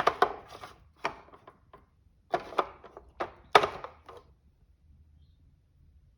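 A metal tin knocking and clicking in the clamp of an adaptive cutting board as it is held and worked one-handed. The sharp knocks come in a loose run over the first four seconds, then stop.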